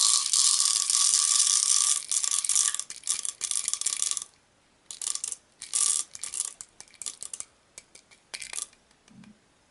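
Small shotgun pellets pouring out of a cut-open 12-gauge shell into a plastic pill bottle: a dense rattling stream for about four seconds, then broken trickles and scattered clicks as the last pellets are shaken out.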